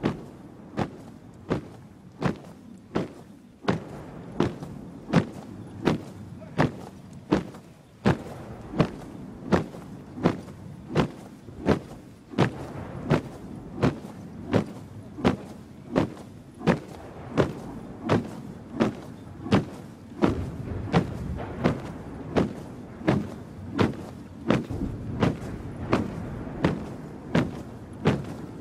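Honour guard's boots stamping on the ground in unison as they march in step, a sharp stamp about three times every two seconds. A low background rumble underneath grows louder about two-thirds of the way in.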